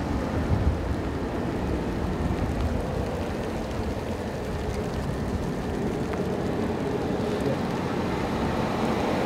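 Steady low mechanical rumble with a faint constant hum, under an even hiss of rain.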